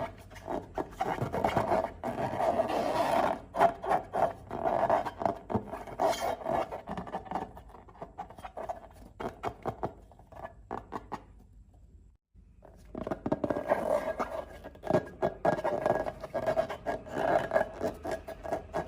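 Slime being squished, stretched and kneaded by hand, a dense sticky crackling and clicking with rubbing. It dies down to near quiet about nine seconds in, cuts off briefly, and starts again about twelve and a half seconds in.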